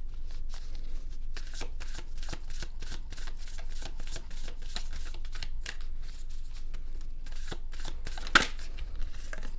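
A deck of cards being shuffled by hand, a quick, continuous run of card slaps and flutters, with one sharper snap of the cards about eight seconds in.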